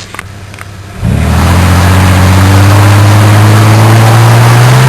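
Holden VN Commodore's engine suddenly put under heavy throttle about a second in, then running loud with its pitch rising slowly as the car accelerates.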